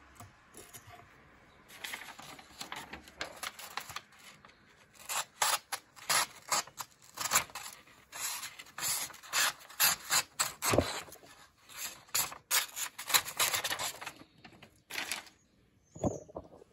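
Leatherman PST knife blade worked in many short, irregular scraping strokes, a few a second, starting about two seconds in and thinning out near the end.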